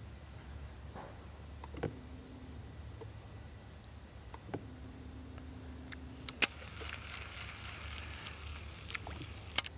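Steady chorus of insects trilling, with a few sharp clicks and short hums from a baitcasting reel being worked; the loudest click comes about two thirds of the way in.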